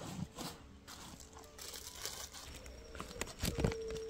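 Soft rustling and crinkling handling noises with a few light knocks, the loudest a little past three seconds in, over a faint steady hum.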